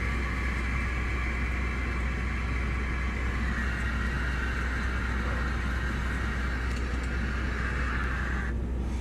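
Steady low rumble of engine and road noise inside a large vehicle's cabin. A steady higher hiss over it cuts off about eight and a half seconds in.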